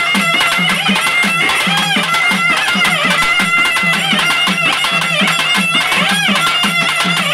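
Live festival music: a reedy wind instrument plays a sustained, bending melody over a steady, repeating drum beat.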